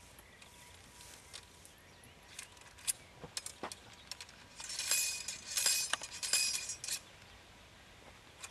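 Flintlock musket being handled in loading drill: scattered light clicks and clinks, then a few seconds of metal scraping with a faint ring about halfway through, the steel ramrod sliding against the musket.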